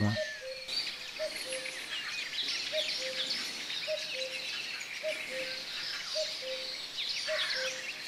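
Dense outdoor chorus of birds chirping and trilling, with a low two-note call, the second note lower, repeated about once a second throughout.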